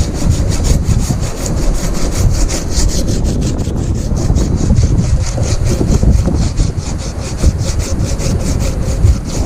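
Rhythmic rasping scrape, about five strokes a second, steady throughout, over wind buffeting the microphone.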